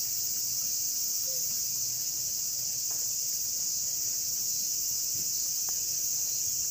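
Chorus of insects making a steady, high-pitched drone without a break.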